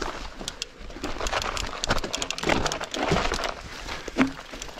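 Rustling brush with scattered irregular clicks and knocks, as mountain bikes are ridden and pushed through dense raspberry bushes.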